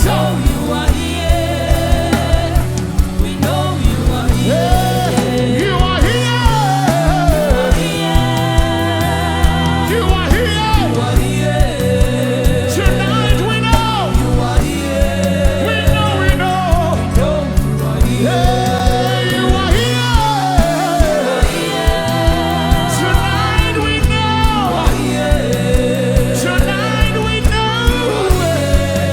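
Live gospel worship band playing with a steady beat, with voices singing long held, wavering notes over it.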